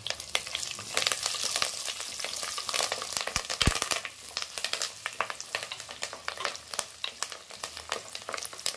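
Curry leaves, garlic, dried red chillies and fennel seeds crackling and sizzling in hot oil in a clay pot as a wooden spatula stirs them. The crackle is busiest in the first few seconds after the curry leaves go in, then eases, with a couple of dull knocks of the spatula against the pot about three and a half seconds in.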